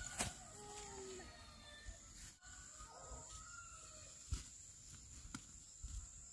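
Quiet rural background with faint bird calls, likely chickens, over a steady high-pitched whine, and a few short sharp knocks, the loudest about four seconds in.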